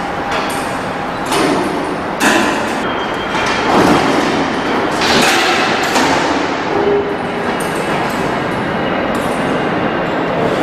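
The sliding extension deck of a Compact 14 electric scissor lift being pushed out along its rails on the raised platform: a metal sliding rumble broken by several clanks and thuds.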